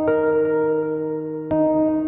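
Slow instrumental music of sustained ringing notes, a new note struck near the start and another about a second and a half in.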